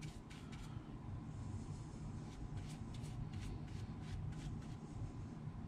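Small bristle paintbrush stroking and dabbing thick peroxide bleaching cream onto a deer skull: faint, irregular scratchy brush strokes over a low steady hum.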